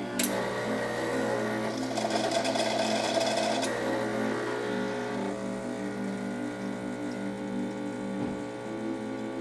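Quick Mill Monza Deluxe super-automatic espresso machine running: a steady mechanical hum with a click about a quarter second in, and a harsher, noisier stretch from about two to four seconds in.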